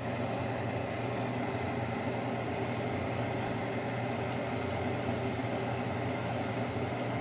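A steady low machine hum under an even hiss, unchanging throughout.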